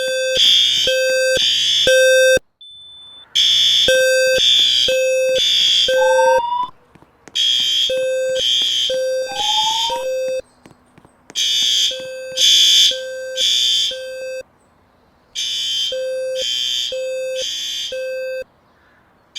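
Fire alarm evacuation signal sounding in the three-beep temporal pattern: groups of three low-pitched, buzzy beeps, each group followed by a pause, repeating steadily. Two brief rising tones chirp faintly in the middle.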